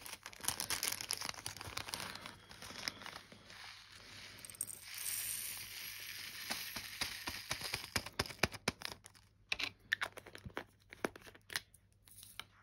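Small plastic bags of diamond-painting drills being handled: crinkling plastic with many small clicks, and a denser, steadier rustle from about five seconds in to about eight.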